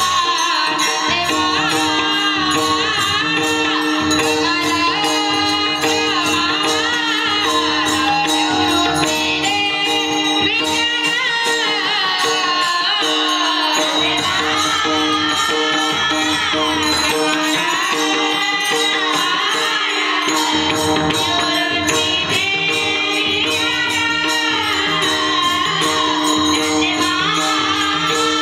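A solo voice singing a Marathi devotional song in a Varkari style, its melody wavering and ornamented, over a steady held drone. Quick metallic hand-percussion strokes keep time throughout.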